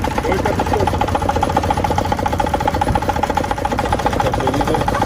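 A car engine running steadily at idle, with a rapid, even pulsing.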